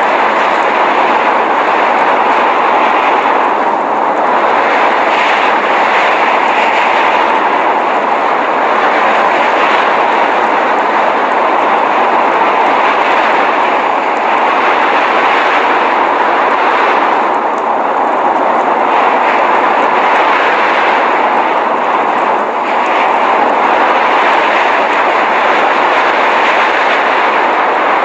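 Blizzard wind noise: a loud, steady rushing hiss, fullest in the middle range, with slight lulls now and then.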